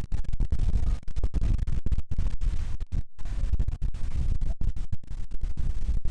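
Typhoon wind buffeting the microphone: a heavy, choppy low rumble that keeps cutting out for split seconds.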